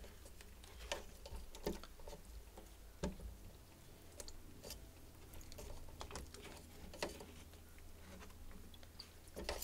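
Faint, scattered clicks and taps of a Shapton Glass 120 whetstone being handled and turned around in its metal stone holder, about a dozen small knocks spread irregularly over a low steady hum.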